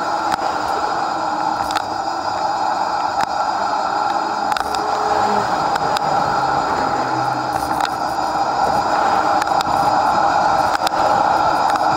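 Steady wind and road noise of a bicycle being ridden, picked up by a camera mounted on the bike, with small clicks and rattles throughout. It grows a little louder in the second half.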